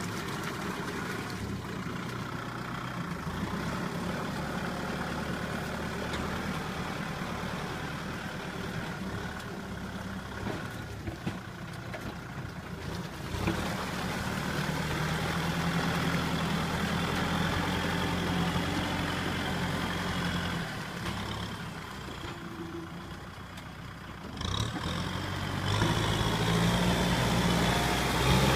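Kubota M6040 SU tractor's four-cylinder diesel engine running under varying throttle. Its note steps up about halfway through, drops back for a few seconds, then picks up to its loudest near the end.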